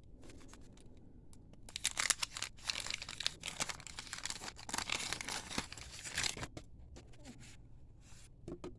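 A trading card pack wrapper being torn open and crinkled: a few seconds of crackly ripping and rustling, starting about two seconds in and dying down shortly before the end.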